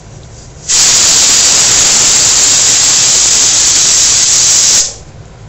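A loud, even white-noise hiss that starts abruptly about a second in and cuts off abruptly about four seconds later.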